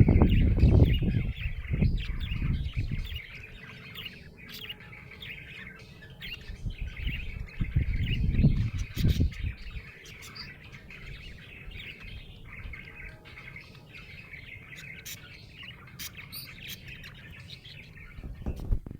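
Budgie chirping continuously in rapid, busy chatter. Two bouts of low rumbling noise, near the start and again around the middle, are louder than the bird.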